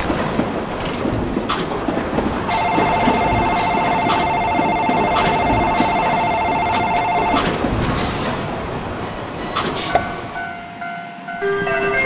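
A train running past at speed: a steady rushing rumble with regular clacks over the rail joints. A Japanese level-crossing alarm rings its rapid two-tone 'kan-kan' from about two seconds in and stops about five seconds later. The train noise dies away around ten seconds in, and a few tones of a melody come in near the end.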